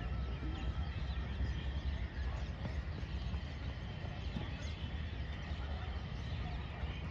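Steady low rumble of wind and movement on a microphone carried at a run, with birds chirping faintly in the background.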